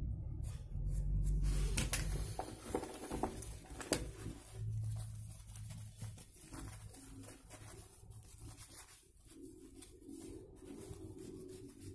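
A disposable face mask rustling and rubbing as it wipes a phone, with scattered clicks and taps of the phone being handled. A low rumble of handling fills the first two seconds, and there is a sharp click about four seconds in.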